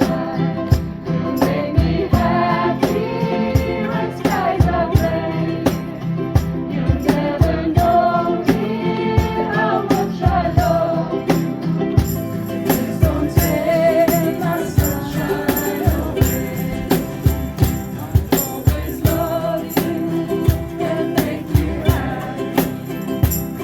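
Ukuleles strummed in a steady beat with a jingling shaker, and a group of voices singing the melody along with them.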